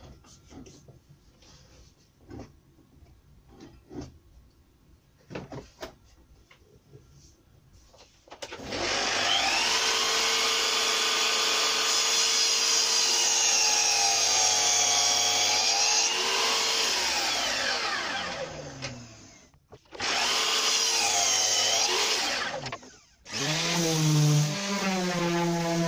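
Festool Kapex sliding mitre saw: clicks and knocks as it is set up, then the saw running through a long cut, its pitch dipping under load and falling away as the blade spins down. A second, shorter cut follows. Near the end a random orbit sander starts running with a steady hum.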